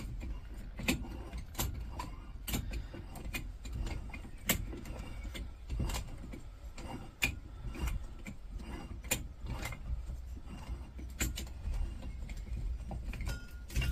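Irregular light metallic clicks and ticks as the brass valve head is unscrewed by hand from the neck of an aluminium CO2 fire extinguisher bottle.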